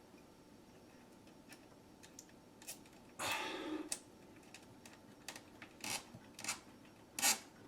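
Scattered light clicks and small handling noises from hands working on a light fixture's wiring, with a short rustling noise a little after three seconds in and a few sharper clicks near the end.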